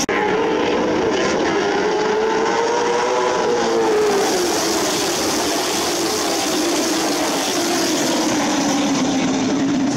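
A pack of late model stock cars racing past at speed, their V8 engines running hard. The engine note climbs over the first few seconds, then slowly falls away.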